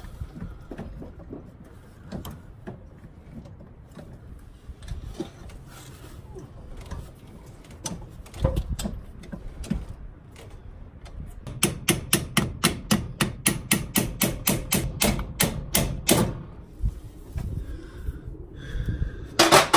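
Ball peen hammer striking metal in a fast, even run of about five blows a second for some four seconds, driving the steering shaft's clamp off the splined steering column. Scattered clinks and knocks of tool work come before it, and there is one louder clank near the end.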